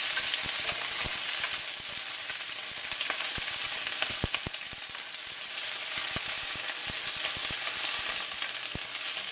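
Garlic sizzling in oil in a very hot cast-iron pan: a steady high hiss with scattered sharp pops and clicks.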